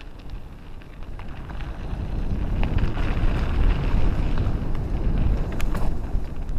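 Wind buffeting a helmet-mounted camera's microphone while riding a mountain bike, getting louder about two seconds in as speed builds on the dirt trail. A few scattered clicks and rattles from the bike over rough ground.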